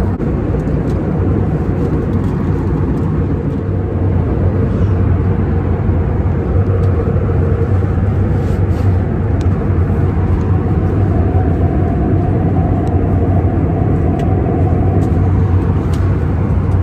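Steady low drone of a jet airliner in flight, engine and airflow noise heard from inside the passenger cabin, getting slightly louder about four seconds in.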